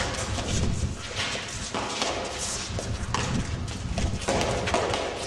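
Eton Fives rally: the hard fives ball smacking off the players' gloved hands and the court walls, a sharp crack every half second to a second, over the scuffing footsteps of the players on the court floor.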